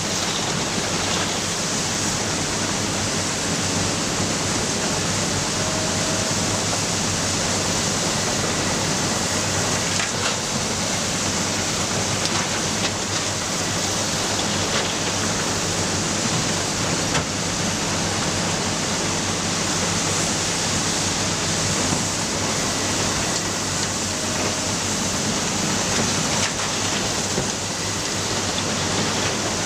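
Matador ME315 excavator's diesel engine and hydraulics running steadily under work, an even dense noise with a low engine hum and a few faint knocks.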